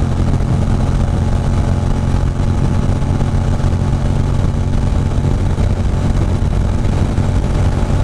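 A 2006 Ducati Monster 620's air-cooled L-twin engine runs at a steady cruising speed, its note holding one pitch, under an even rush of wind and road noise.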